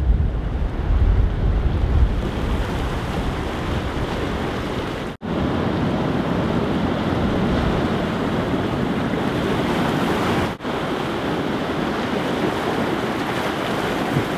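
Ocean surf washing on a beach, with wind buffeting the microphone, heaviest in the first couple of seconds. The sound breaks off abruptly twice for an instant, as the footage is cut.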